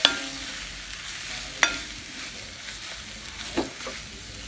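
Spatula stirring and mashing potato sabji in a cast iron kadai over a light sizzle, with sharp knocks against the pan at the start and about a second and a half in, each ringing briefly, and two softer knocks near the end.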